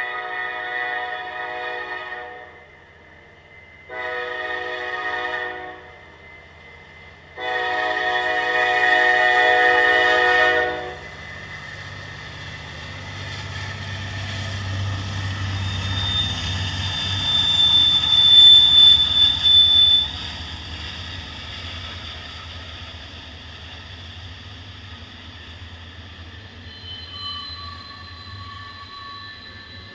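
A slow freight train's diesel locomotive horn blows three blasts, the last one the longest. Then the locomotive's rumble grows as it passes close, with a brief high squeal, and gives way to the steady rumble of freight cars rolling by.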